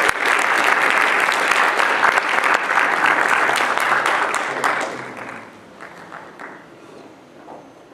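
Audience applause: many people clapping. It dies away about five seconds in, leaving a few scattered claps.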